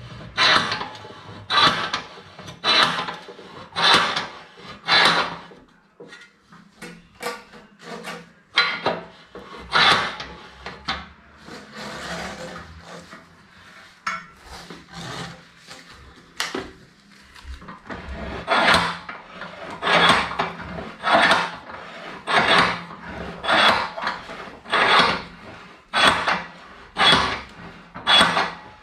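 Rhythmic rubbing and scraping strokes, about one a second, from hands working an upright wooden rug loom and its warp threads. The strokes thin out for a while in the middle, then resume at a steady pace.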